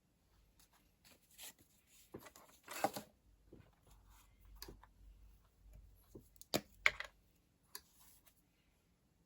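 Paper and stationery being handled on a desk: light rustles and taps, a short papery rasp about three seconds in, and two sharp clicks a little before seven seconds.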